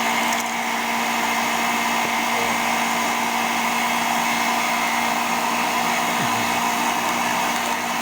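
Electric blender motor running steadily: a continuous motor whine with a steady hum, unchanged throughout.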